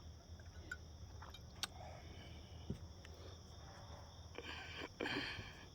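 Insects chirping steadily in quiet outdoor ambience, with a brief hissing rustle a little over four seconds in.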